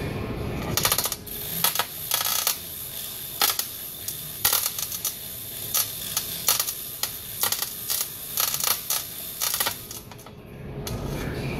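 Steel links of a hand chain hoist clinking and rattling as the chain is pulled: irregular sharp metallic clinks, several a second, starting about a second in and stopping near the end.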